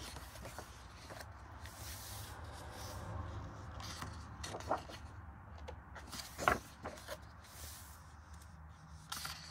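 Pages of a large paperback colouring book being turned and pressed flat, with faint paper rustling and a couple of short taps about halfway through.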